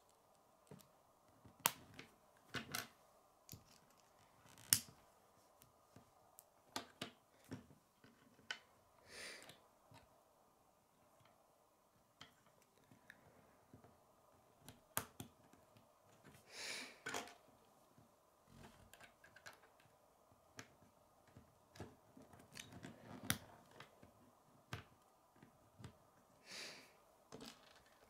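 K'nex plastic rods and connectors being snapped together and handled by hand: irregular sharp plastic clicks, with a few softer rustling scrapes.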